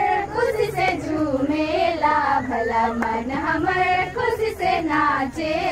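Singing: a high voice carrying a melody that glides up and down with few breaks.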